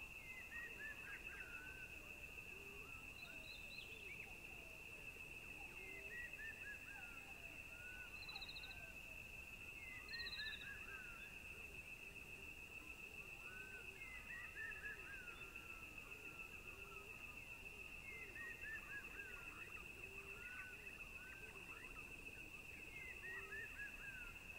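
Faint natural ambience: a steady high-pitched insect buzz, with a bird repeating a phrase of quick, downward-slurred notes about every four to five seconds.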